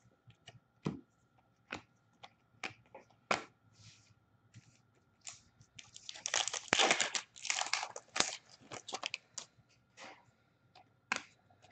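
Trading cards handled with scattered light clicks and taps, then a hockey card pack's wrapper crinkling and tearing open for about three seconds starting about six seconds in, followed by a few more crinkles and clicks.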